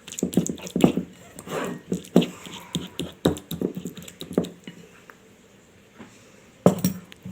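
Fork mashing soft boiled garlic cloves into a paste in a bowl: irregular squishing strokes and taps of the fork against the dish, which stop about four and a half seconds in, then one sharper knock near the end. The cloves are cooked soft, so they squash easily.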